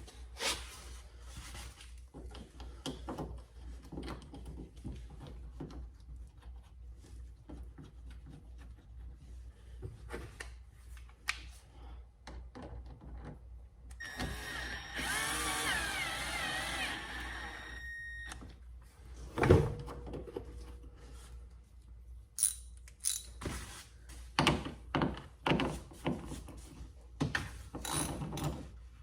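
Scattered clicks, taps and knocks of hand tools and metal fasteners on a car door as the outer door handle is bolted back in. A wavering whine runs for about four seconds midway, and a sharp knock follows just after it.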